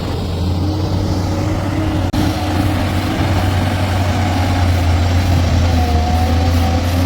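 Heavy diesel engine running steadily with a deep, constant hum, broken briefly about two seconds in, and a faint whine later on.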